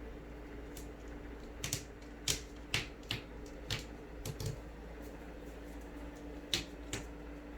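Irregular light clicks and taps, about a dozen, in small clusters, over a steady low hum.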